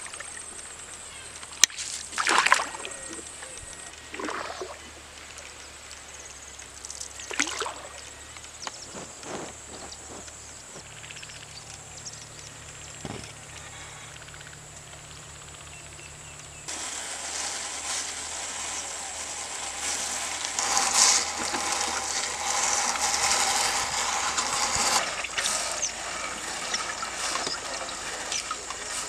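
River water splashing and trickling around a fishing net worked from a small boat: scattered single splashes at first, then about halfway through a steadier, louder run of sloshing and dripping as the wet net is hauled in over the side.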